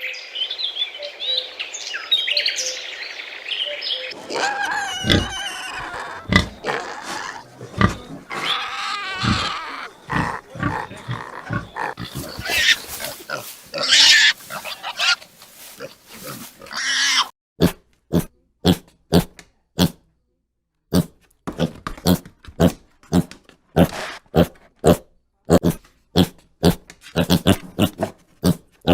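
Pigs grunting and squealing in a dense, irregular stretch. In the second half this gives way to a steady run of short grunts, about two a second.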